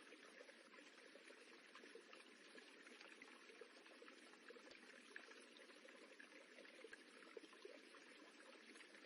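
Running water rippling: a faint, steady wash of sound with small irregular flickers throughout.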